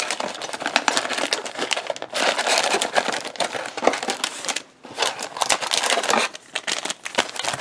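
Plastic wrappers of trading-card booster packs crinkling and rustling as the packs are handled and laid out one by one, with a brief lull near the middle.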